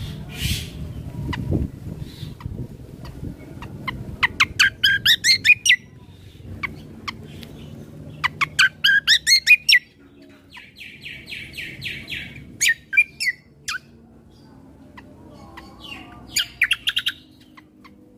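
Kecial kombo (cucak kombo) singing: two fast, rising runs of sharp notes, then a buzzy rattle and a few shorter chirp runs, over a low background rumble.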